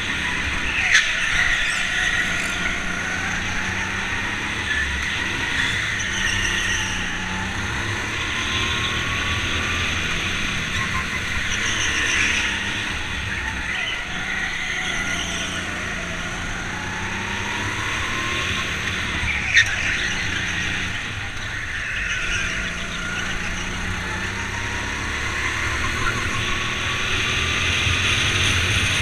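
Go-kart heard from onboard while lapping a track. The motor's pitch rises along the straights and falls into the corners. Two sharp knocks come through, about a second in and again about two-thirds of the way through.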